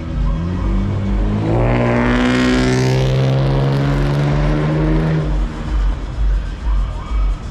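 A road vehicle's engine accelerating and passing close by, rising in pitch and then holding steady before fading, over music with a steady bass beat.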